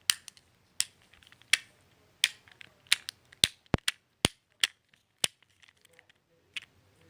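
Fidget cube being fiddled with: a string of sharp, irregular clicks from its plastic controls, some close together and some spaced apart.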